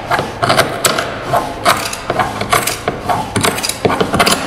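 Scissors cutting through 450 gsm biaxial fibreglass cloth, snip after snip about two to three times a second, with the stiff cloth crackling between cuts.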